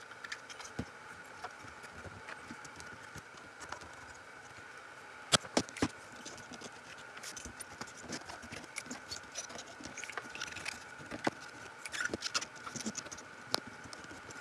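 Scattered light clicks and taps of circuit boards and tools being handled on a workbench, a few sharper ones about five seconds in and again near the end, over a faint steady high hum.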